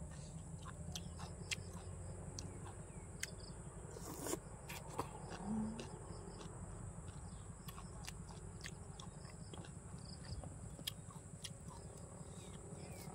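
Close-up eating sounds, chewing with scattered wet mouth clicks and one louder click about four seconds in, over a steady high-pitched insect drone.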